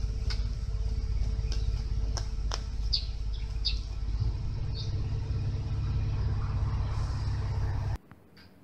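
A mouse squeaking in a few short, high chirps while a cat paws at it, over a steady low rumble, with a few light clicks. Everything cuts off abruptly about eight seconds in.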